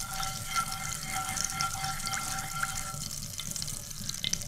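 Oil with paprika and food colouring sizzling lightly in a small pan as it is stirred: a tempering (baghar) being warmed just briefly, short of burning. A faint steady whine sounds behind it and stops about three seconds in.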